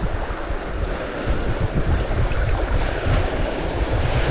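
Rushing whitewater of a short set of river rapids around a canoe running through them, with wind buffeting the microphone as a low rumble.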